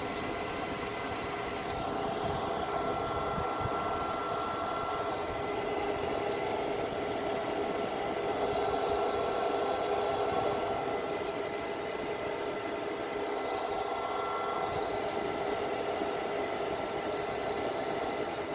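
Cooling fans running: a steady whir with a few constant hum tones over an even rushing noise.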